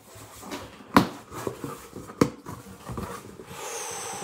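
Cardboard box being opened by hand: flaps knocking and scraping, with two sharp knocks about a second and two seconds in. Near the end, a steady rustle of cardboard and packing paper as the contents are handled.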